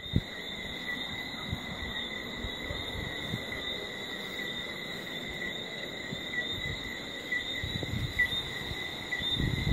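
Night insects, crickets among them, chirping in a steady high-pitched chorus, with a low rumble underneath.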